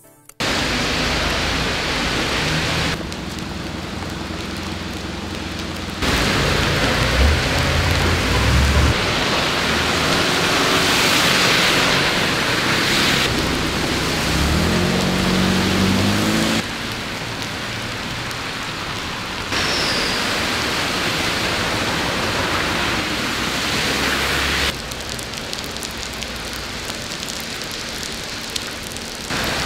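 Heavy rain pouring onto wet city streets, a steady hiss of water on pavement, with the level jumping abruptly several times between takes. About halfway through, a car drives through deep water on a flooded road, throwing up spray, its engine rising in pitch.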